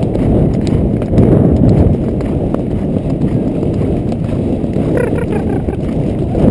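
Horse cantering across soft stubble-field earth, heard from the saddle: steady hoofbeats under a dense low rumble of wind noise on the microphone.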